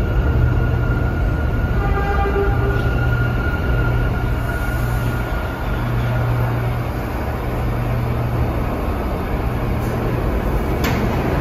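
R179 subway train slowing to a stop at a station platform, with a steady low motor hum and a thin high whine that fades as it comes to rest. A single sharp click near the end.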